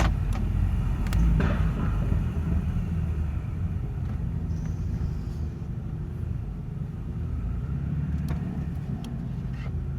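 BMW 328i's turbocharged 2.0-litre four-cylinder engine and road noise while driving, a steady low drone that grows gradually quieter after about two seconds in. A few sharp clicks near the start and again near the end.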